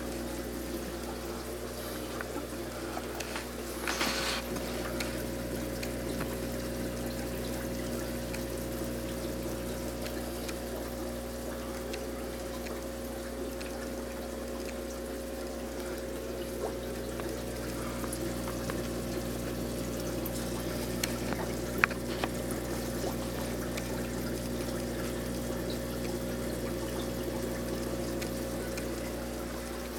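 Air-driven aquarium sponge filter bubbling and trickling steadily as air lifts water up its tube, over a steady low hum.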